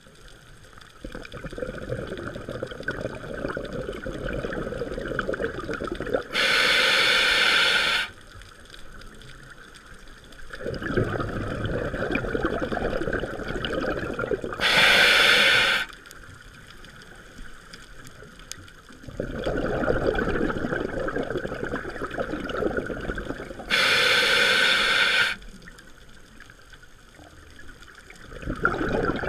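Scuba diver breathing through a regulator: a short, loud hiss from the demand valve on each inhale, a pause, then several seconds of bubbling exhaust on each exhale. The cycle repeats about every eight and a half seconds, three times over.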